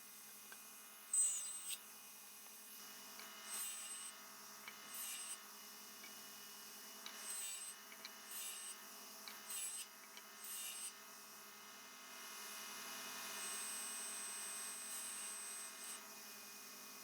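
Hand tool working wood in a series of short scraping strokes, then one longer, smoother stroke near the end, over a steady electrical hum.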